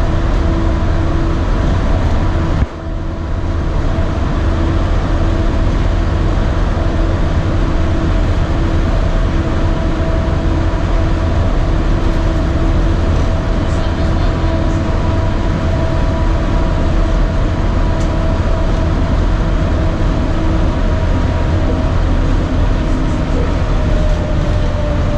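Walt Disney World monorail running along its beam, heard from inside the car: a steady low rumble with a steady electric motor whine over it. About three seconds in there is a brief dip in the noise.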